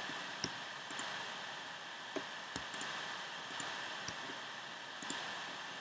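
Scattered sharp clicks from a computer keyboard and mouse, a few a second and irregular, over a steady hiss.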